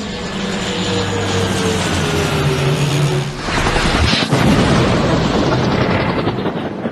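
Small propeller plane's engine droning as it flies in low, its pitch falling slightly, with a sharp knock about four seconds in.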